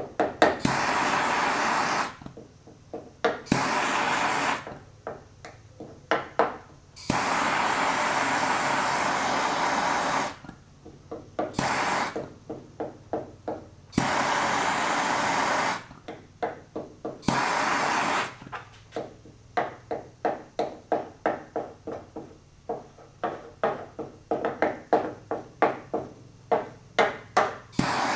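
A gas torch hissing in bursts of about two seconds that start and stop abruptly, heating lead on a car body panel. Between the bursts come quick rows of sharp taps and ticks, about two or three a second.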